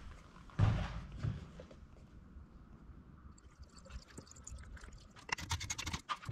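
Coolant poured from a plastic bottle into a dirt bike's radiator filler neck, splashing and glugging near the end. A sharp knock about half a second in, and another near 1.3 s, come from the bottle being handled.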